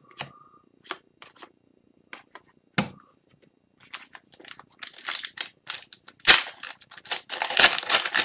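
Trading cards clicking and sliding against each other as they are handled. From about four seconds in, the crinkling and tearing of a foil hockey card pack wrapper being ripped open.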